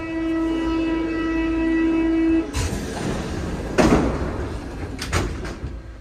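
A metro train's door-closing warning tone sounds steadily for about two and a half seconds. Then the sliding doors rush shut with a couple of knocks.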